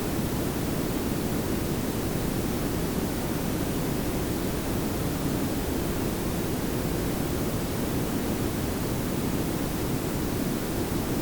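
Layered pink and brown noise: a steady, even hiss with a strong low rumble, unchanging throughout.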